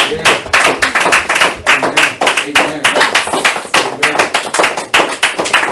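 A congregation clapping in a steady rhythm, about three claps a second.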